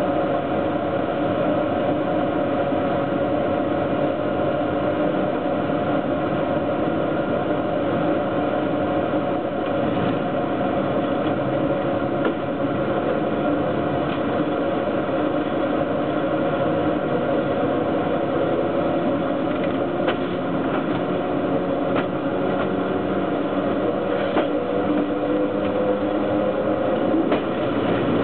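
Wheels and running gear of a BDZ class 43 electric locomotive rolling on the rails while hauling a 1308-ton freight train, heard from right beside the wheel. A steady rumble with a humming drone and a few faint clicks.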